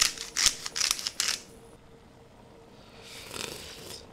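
Hand-twisted salt grinder crunching coarse pink salt crystals, about five quick grinding strokes in the first second and a half, then it stops.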